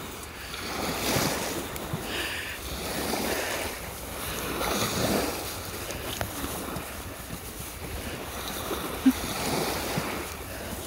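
Small waves washing in and out on a sandy shore, swelling and fading about every two seconds, with wind rumbling on the microphone. A short, sharp sound stands out about nine seconds in.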